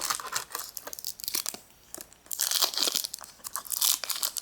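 Foil Pokémon booster pack wrapper crinkling and tearing as it is ripped open by hand, in irregular bursts of crackling that are loudest a little past halfway through.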